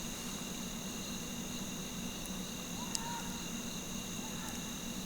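Night chorus of crickets: a steady high trilling at several pitches at once. About three seconds in comes a faint, short, rising-and-falling call from an unidentified animal.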